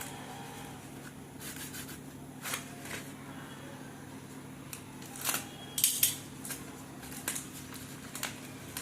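Hands opening and handling the packaging of a slate pencil order: scattered crinkles, snips and sharp clicks, loudest about five to six seconds in, over a steady low hum.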